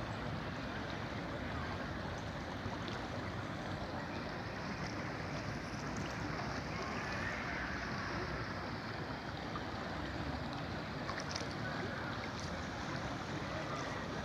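Kolubara river water flowing, a steady rushing with a few faint ticks.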